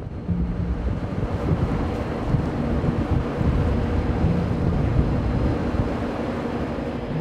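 Wind buffeting the microphone on the deck of a squid-fishing boat at sea, over a low, uneven rumble of the boat's engine and the water.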